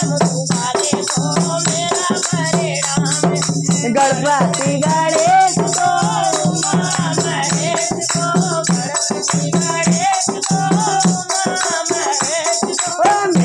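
Devotional kirtan bhajan: a boy singing, with women joining in, over a dholak drum, small manjira hand cymbals and a plastic hand clapper rattling in a steady rhythm.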